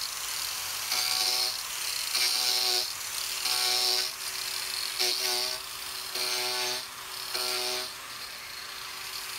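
Makita angle grinder with an Arbortech Turboplane carbide carving disc running and being swept across a wooden seat blank in about six passes, roughly one a second. Each pass briefly grows louder and takes on a buzzing tone as the teeth bite the wood, with the grinder's steady run in between.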